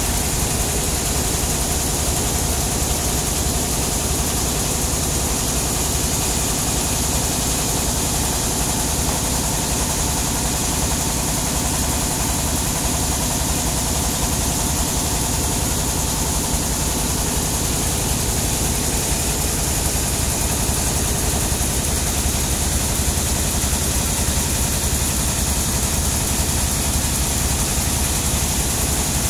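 Sawmill engine running steadily, a low, even drone with a fast throb underneath and a hiss on top, with no change in speed or load.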